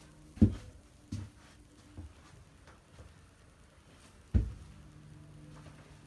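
Four dull knocks at uneven intervals. The loudest comes about half a second in and another strong one about four seconds in, with a faint low hum after the last.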